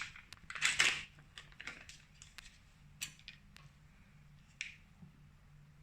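Mascarpone being scraped and tapped out of its tub into a bowl: a short scraping rustle about a second in, then scattered light clicks and taps, over a faint steady hum.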